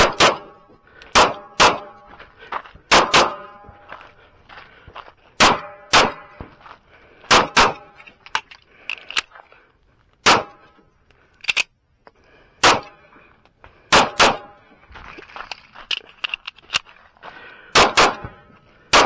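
Kimber Custom II 1911 pistol in .45 ACP firing a course of fire, mostly in quick pairs of shots, about seventeen in all. Steel targets ring after many of the hits.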